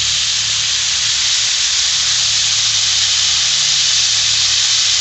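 Rabbit legs sizzling in hot canola oil in a cast-iron skillet: a loud, steady hiss of frying.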